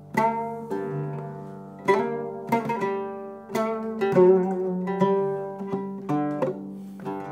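A solo plucked string instrument playing a slow melody: single notes and small clusters struck every half second to second, each left to ring and fade.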